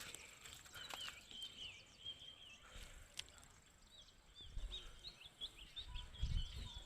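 Faint outdoor ambience of small birds chirping in quick, wavering notes. A few low rumbles come near the end.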